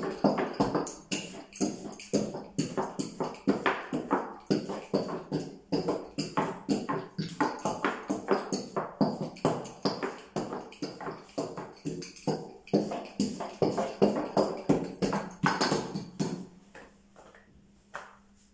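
Thin wooden rolling pin rolling and knocking against a wooden board as feteer dough is rolled out: a quick, uneven clatter about three times a second that stops near the end.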